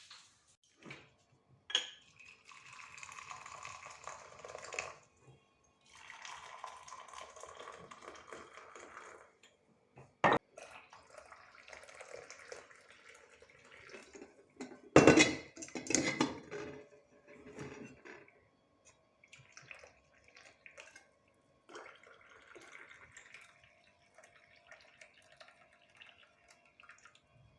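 Water running from a tap in two short spells, with dishes and cutlery clattering; the loudest clatter comes about halfway through.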